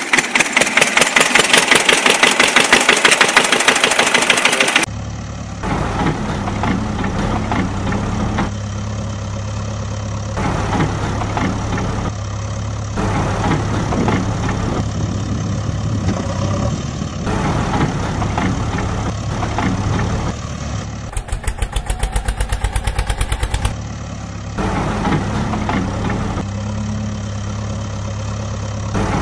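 Engine sound effect for a tractor: loud, fast, even chugging for about the first five seconds, then a steady low idle, with a second short burst of fast chugging about 21 seconds in.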